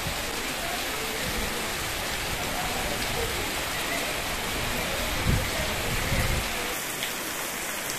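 Heavy rain pouring onto a waterlogged street, a steady hiss of drops splashing into standing water. Two brief low rumbles stand out a little past five and six seconds in.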